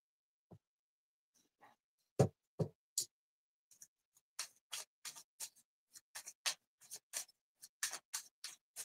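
Two knocks on the tabletop a little after two seconds in, then a tarot deck being shuffled by hand: short, papery card swishes about three a second.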